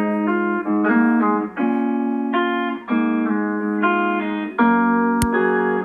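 Instrumental music of a rap song's intro, with no vocals: sustained melodic chords that change every half second to a second, and a single sharp click about five seconds in.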